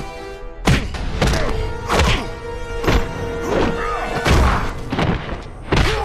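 Punches and body-slam impact sound effects from a fistfight, about seven heavy thuds less than a second apart, over music.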